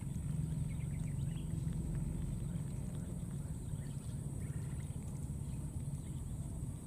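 A steady low rumble with faint crackling as a baby monkey's hands paw through dry straw and grass stems.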